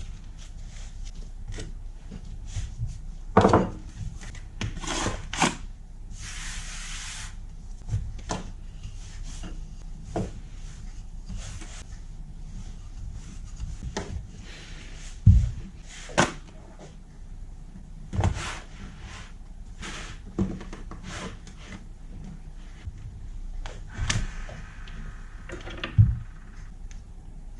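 Kitchen food-prep handling sounds: scattered knocks, taps and clatters of objects set down and moved, with rubbing between them. There is a short rustle about six seconds in, and all of it sits over a steady low hum.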